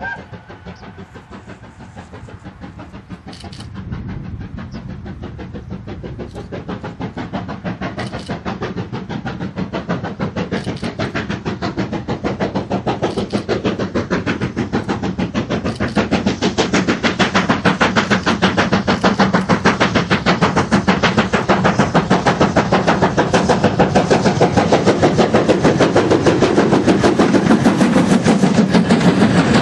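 BR Standard Class 7 'Britannia' Pacific steam locomotive No. 70000 working hard with a train: a fast, even beat of exhaust from the chimney, growing steadily louder as it approaches and comes close. The last of its whistle cuts off right at the start.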